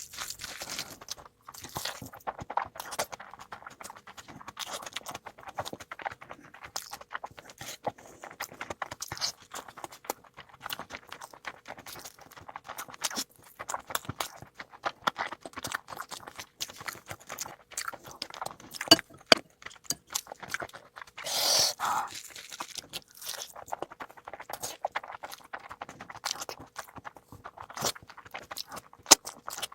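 Close-miked eating: wet chewing and lip smacks with many quick irregular clicks, and one louder, longer noisy burst about two-thirds of the way through.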